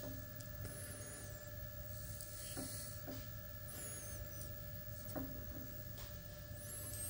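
Quiet, steady electrical hum, with a few faint knocks as a milling machine's gear cutter is turned by hand against a dial test indicator. A few short high chirps come and go.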